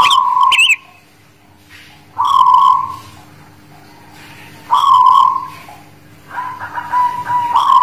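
Zebra dove (Javanese perkutut, 'Guling Murio' type) singing: three long, clear coos about two and a half seconds apart, then a quick run of short rolling notes that runs into another coo near the end.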